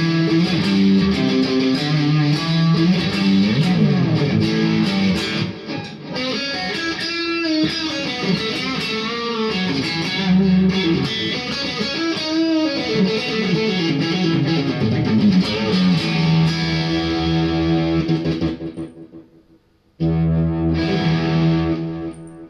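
Electric guitar, a Kogai Tele 72 Custom, played through a Randall RG50TC tube amp with delay, heard through the room microphone. It plays melodic lines with bent notes, fades out about nineteen seconds in, then strikes one chord and lets it ring near the end.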